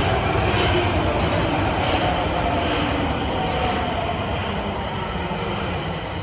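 Nagoya subway Higashiyama Line train running, a loud rumble with a whine that slides down in pitch and slowly fades. This is the odd running noise (異音) the uploader notices on trains heading toward Fujigaoka.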